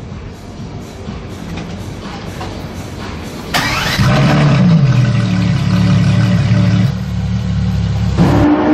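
A supercar engine starting, with a short burst of cranking about three and a half seconds in, then catching and running at a steady fast idle.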